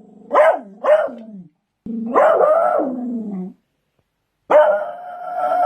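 Beagle barking twice in quick succession, then baying: two long, drawn-out bays with a wavering pitch, separated by a short silence.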